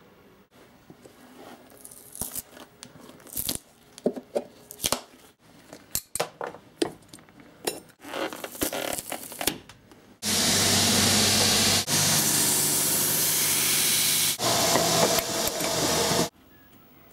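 Old leather shoe sole being pried and torn off with a hand tool: irregular scraping, crunching and clicking. About ten seconds in, a loud, steady machine noise takes over for about six seconds, dipping briefly twice, then cuts off.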